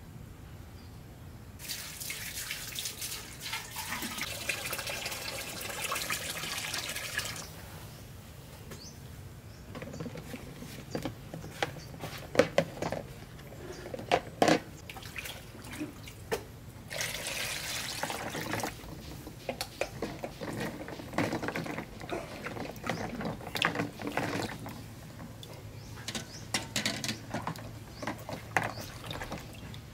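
Duck eggs being washed by hand in a plastic basin of water: water runs into the basin for a few seconds, then splashing and sloshing with sharp knocks now and then as the eggs hit each other and the basin.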